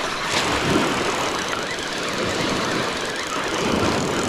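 Baltic surf breaking on the shore, a steady rushing noise made rougher by wind and wave noise on the microphone.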